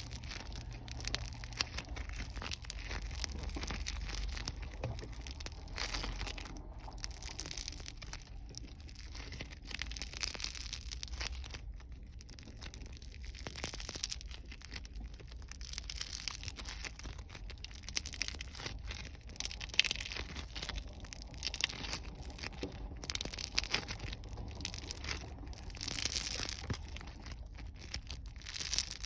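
Crackle foam being squeezed and worked by hand, giving a dense, continuous run of small snaps, pops and crackles, with louder clusters now and then.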